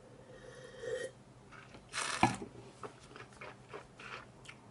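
A person sipping white wine from a tasting glass, with a soft slurp, then a louder breathy rush with a sharp click about two seconds in. Faint lip and tongue smacks follow as the wine is tasted in the mouth.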